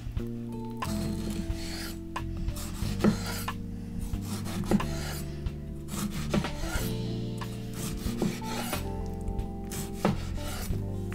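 Santoku knife slicing through a tomato and knocking on a wooden cutting board, a rasping cut followed by a sharp tap at each of several strokes, over soft background music.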